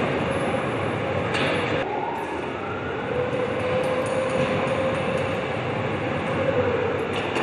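Machine hum in an engine assembly hall: a steady electric drone holding one tone. A short hiss comes just over a second in, and soon after a whine rises in pitch.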